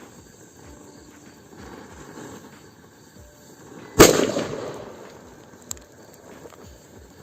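A firecracker going off with one sharp bang about four seconds in, its sound dying away over about a second, followed by a faint click.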